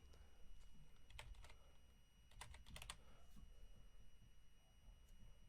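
Faint, irregular clicking of computer keyboard keys being typed, a dozen or so scattered keystrokes.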